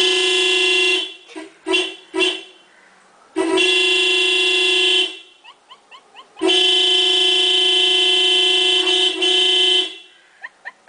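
Car horn sounded by a pug pressing the steering-wheel horn pad with its front paws: one long blast, three short toots, then two long blasts, the last about three and a half seconds. The horn is a steady single note.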